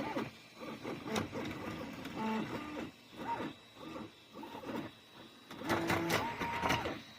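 FDM 3D printer running, its stepper motors singing short steady tones that jump in pitch as the print head moves, with a few sharp clicks.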